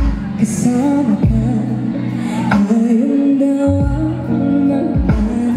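A woman singing live into a handheld microphone over a backing track of bass and drums, with a slow, even beat.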